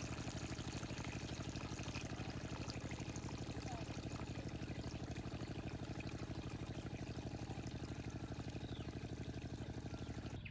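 A small engine running steadily with a fast, even pulse, over a rushing hiss.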